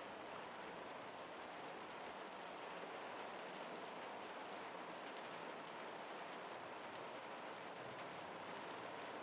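Steady rainfall, a soft even hiss with a faint patter of scattered drops.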